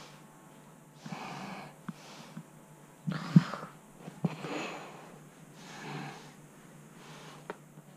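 A person breathing audibly close to the microphone, four noisy breaths in and out, with a few light knocks and a low steady hum underneath.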